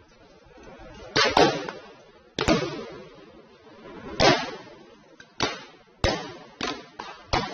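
Fireworks exploding: a string of sharp bangs at irregular intervals, some in quick pairs, each trailing off briefly.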